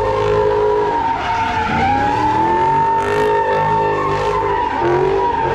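Drift car doing donuts: a sustained, high tire squeal over the engine, whose pitch rises and falls as it is revved.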